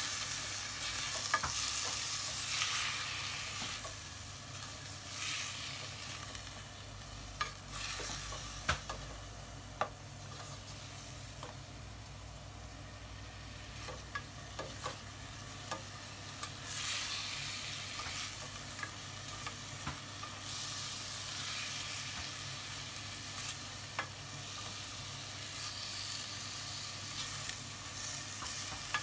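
Chicken pieces frying in oil with browned onion and garlic, sizzling as they are stirred and turned with a plastic spatula that clicks and scrapes against the pan. The sizzle swells now and then as the pieces are moved.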